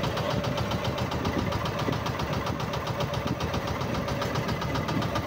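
Small engine of a motorized outrigger boat (bangka) running steadily under way, with a fast, even beat.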